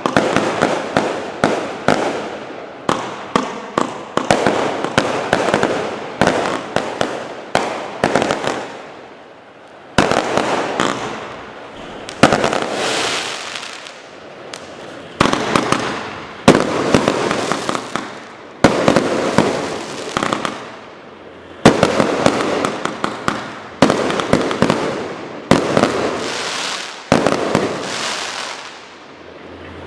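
A 135-shot compound firework cake firing. At first the shots come in quick succession, then bursts follow every second or two, each trailing off into crackling, and the firing stops near the end.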